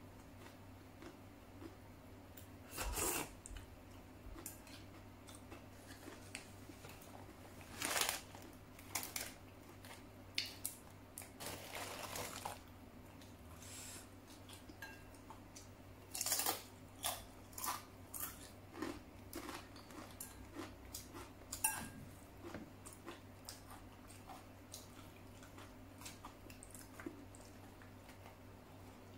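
Close-miked eating: a person chewing and biting mouthfuls of flat rice-noodle soup, with short sharp mouth and bite sounds scattered irregularly. A few louder ones last up to about a second, and chopsticks click lightly against the ceramic bowl.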